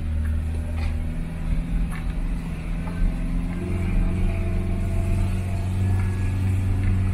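Vehicle engine running steadily, heard from inside the cab while driving slowly on a rutted dirt track, with occasional knocks and rattles. The engine note shifts slightly about three and a half seconds in.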